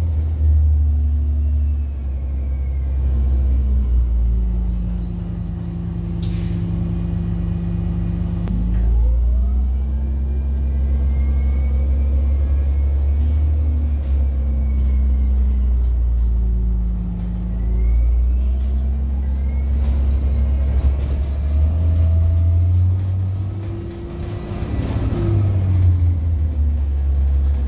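2007 Orion VII 30-foot transit bus's diesel engine running under way, heard on board, its pitch rising and falling several times as the bus speeds up, shifts and slows.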